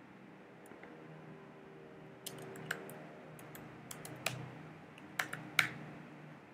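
Typing on a computer keyboard: an irregular run of sharp key clicks that starts about two seconds in, with the loudest keystrokes near the end.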